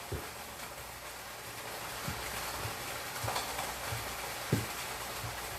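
Pepper and oil mixture sizzling in a pot, with a few soft knocks of a spoon against it as the curry is stirred in.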